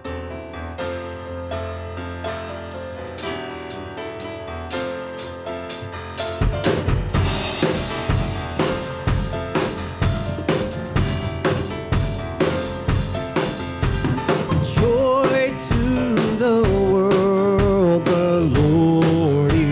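A church praise band plays a song intro. Sustained keyboard chords come first, and drum kit and bass join about six seconds in with a steady beat. A voice starts singing about three-quarters of the way through.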